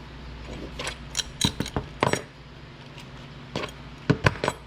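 Metal tailgate chains clinking and rattling as they are handled. Two clusters of sharp clicks come, about a second in and again near the end.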